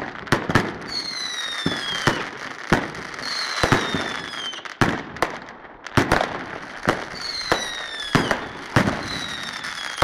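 Fireworks going off: a rapid, irregular string of sharp bangs mixed with whistling shells, four whistles that each slide down in pitch over about a second.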